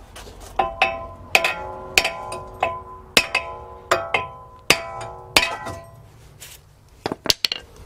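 Hammer blows on a front brake disc stuck on a Nissan Leaf's hub: about eight strikes, each under a second apart, each leaving the steel disc ringing. A few lighter knocks and clicks follow near the end.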